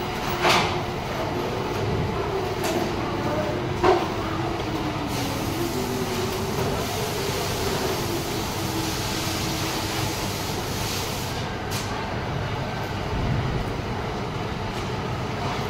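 Steady factory machinery noise from a production line, with a faint hum that wavers in pitch. Two sharp knocks stand out, about half a second and about four seconds in.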